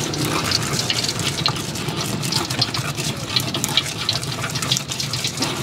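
Bamboo-root pestle grinding chilies in a clay mortar (cobek): a continuous wet scraping and crunching made of many small, rapid clicks.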